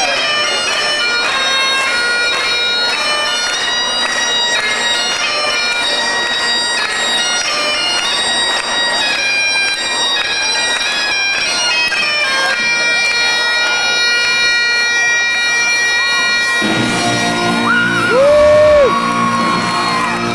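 Great Highland bagpipe playing a tune over its steady drones. About seventeen seconds in the piping stops and louder crowd noise with whooping voices takes over.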